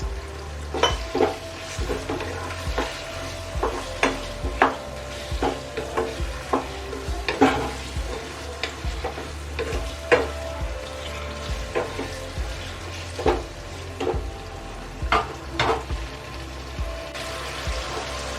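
Chicken frying in onion-tomato masala, sizzling steadily, while a spoon stirs it. The spoon scrapes and knocks against the pan irregularly, several times a second.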